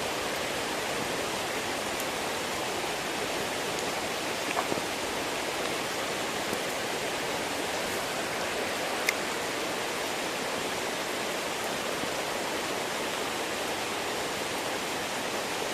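Small stream rushing steadily, with a couple of faint short clicks.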